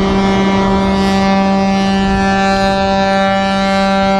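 Ship's horn sounding one long, steady blast.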